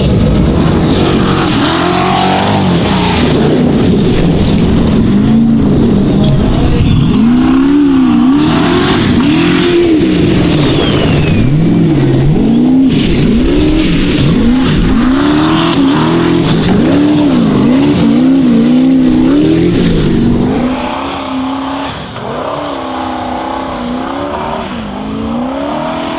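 Formula offroad buggy's V8 engine revving hard on a hill-climb run, its pitch rising and falling about once a second as the throttle is worked. It gets quieter and steadier near the end.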